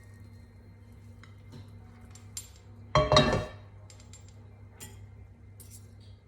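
Kitchen dishes and utensils clinking, with scattered light clicks and one loud ringing clang about halfway through, over a low steady hum.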